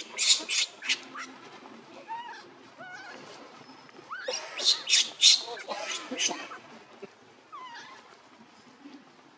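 Newborn macaque crying in distress: bouts of harsh, rapid screeches at the start and again about halfway through, with thin wavering squeaks between them and a falling squeak near the end.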